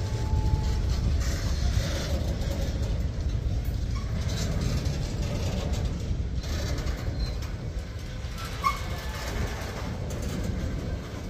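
Freight train covered hopper cars rolling slowly past: a steady low rumble of steel wheels on the rails, with a few clacks.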